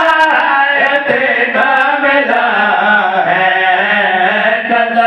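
A male voice singing a devotional qasida in long, ornamented held notes, amplified through a microphone and loudspeaker.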